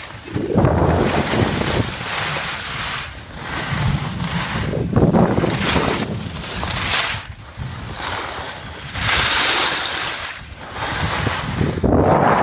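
Skis scraping over snow with wind rushing across the microphone during a downhill run. The noise swells and fades in surges every second or two.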